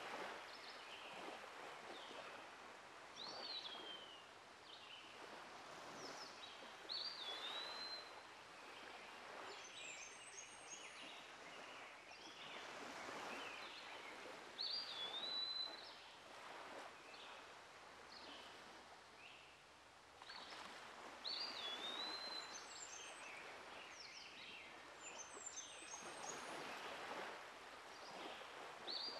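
Outdoor ambience of songbirds: a bird repeats a short whistled phrase with a downward swoop every few seconds, with higher chirps around it, over a soft background hiss that swells and fades.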